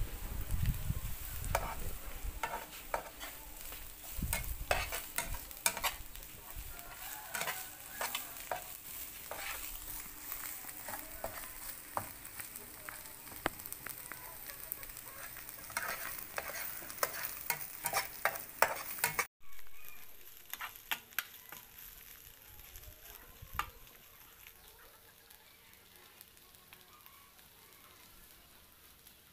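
Metal spatula stirring and scraping fish fried with kroeung paste in a non-stick frying pan, with a frequent clink and scrape of the spatula over the sizzle. The sound cuts out briefly about two-thirds through and is quieter, with fewer strokes, afterwards.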